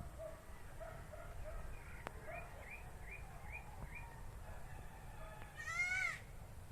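A baby goat gives one short, high bleat about six seconds in. Before it comes a run of small, quick, repeated chirps from other animals nearby.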